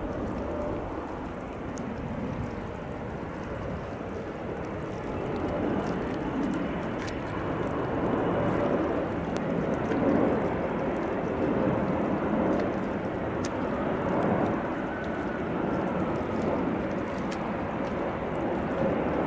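Boeing 777 twin-jet's engines on landing approach: a steady rushing jet noise with a faint hum and whine through it. It grows louder about a third of the way in as the airliner comes close.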